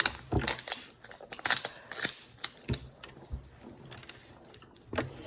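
Small toy pieces handled on a tabletop: scattered sharp clicks and taps, busiest in the first few seconds and sparser after.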